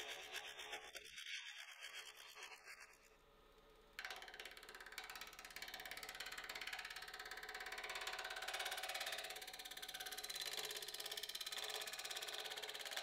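A curved gooseneck hollowing tool cutting into a manzanita burl spinning on a wood lathe: a fast, finely pulsing scraping chatter. It eases off about three seconds in and comes back abruptly about a second later as the tool bites again.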